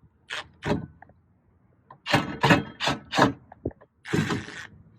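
Hand tool working the 10 mm bolts on a car door: sharp clicks and knocks, two near the start and four in quick succession around the middle, then a short scraping hiss near the end.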